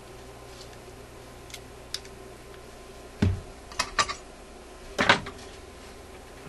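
Small metal parts and hand tools being handled on a workbench: scattered light clicks, then a few louder knocks and clatters in the middle of the stretch, over a faint steady hum.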